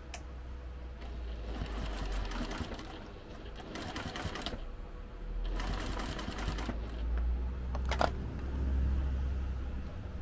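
Domestic sewing machine sewing a basting stitch through layered fabric, running in short runs that stop and start, with a sharp click about eight seconds in.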